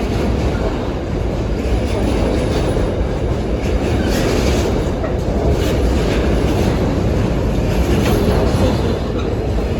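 Freight train rolling past at close range, with a steady rumble of wheels on the rails and a light clickety-clack.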